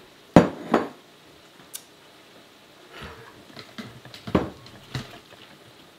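Kitchen handling knocks: a pair of sharp clunks near the start, lighter knocks around three seconds in, and two more clunks near the end as halves of a squash are lifted and set down onto a cookie sheet.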